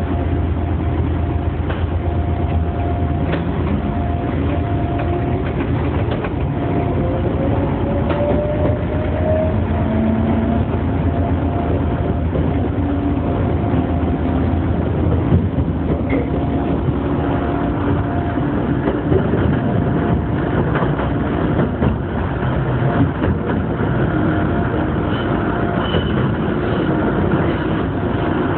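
Gakunan Railway electric train pulling away from a standstill: a motor whine rises steadily in pitch over several seconds as it gathers speed, then the steady rumble of wheels on rail, heard from inside the front cab.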